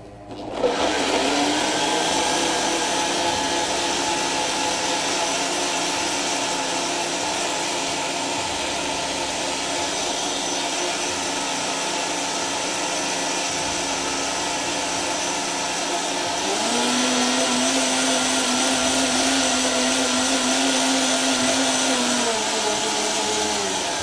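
Electric blender running, blending garlic, vinegar, lemon juice and water into garlic sauce. The motor starts about half a second in and runs steadily; about two-thirds of the way through its note drops and it gets louder.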